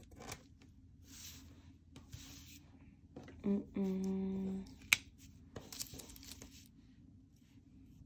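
Paper stickers and their backing sheet rustling as they are handled and picked off with metal tweezers. About three and a half seconds in, a short hummed "hm-mmm", the loudest sound, followed by a single sharp click.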